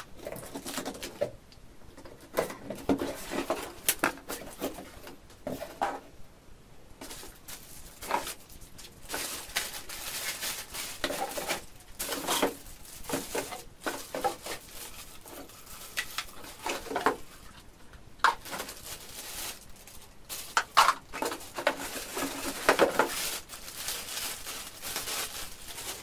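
A cardboard box being opened and plastic-wrapped vacuum cleaner parts pulled out of its cardboard insert: irregular crinkling of plastic bags and scraping and flapping of cardboard.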